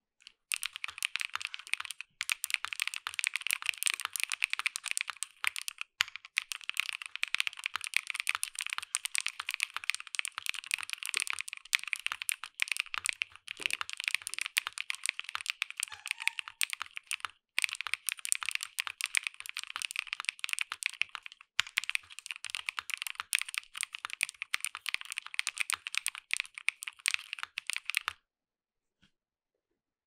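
Fast, continuous typing on a Hibiki 65% mechanical keyboard with lubed Greenjacket linear switches, a polycarbonate plate, an aluminium top case and GMK Soyamilk keycaps, the keystrokes clacking in quick succession. The typing pauses briefly a few times and stops near the end.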